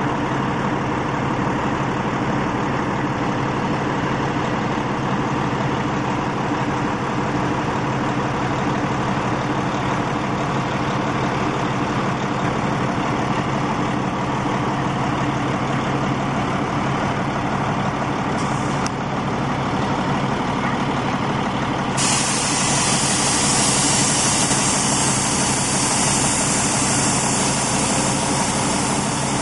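Garbage truck's diesel engine idling steadily. About three-quarters of the way through, a steady hiss starts suddenly and runs on over the engine.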